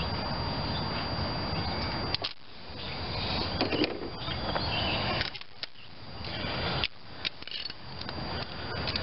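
Handling noise: rustling with a few light clicks as a new spark plug is handled over the engine bay, the clicks coming in the second half.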